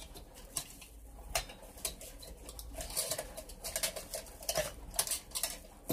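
Red metal hurricane lantern being handled and opened: scattered light clicks and rattles of its wire frame and cap, with a few brief clinks of the glass globe.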